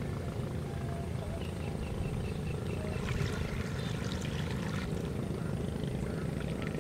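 Wind rumbling on the microphone in open country, with faint short chirps repeated a few times. Around the middle there is light splashing and rustling as a person wades through shallow floodwater among tall stalks.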